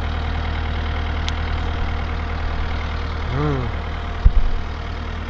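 Engine of a tracked work machine idling steadily. A short rising-and-falling call comes about three and a half seconds in, and a heavy low thump, the loudest sound, just after four seconds.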